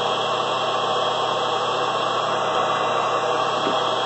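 Electric flush-and-fill pump running with a steady hum, drawing vinegar from a bucket through a hose to pump it through a solar thermal loop.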